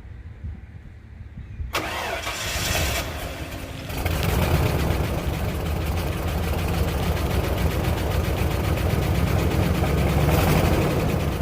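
A 1995 Ford F-150's 5.0 V8 being started: about two seconds in the starter begins cranking, and about four seconds in the engine catches and keeps running steadily. This is a truck that the owner says kicks over but doesn't stay running.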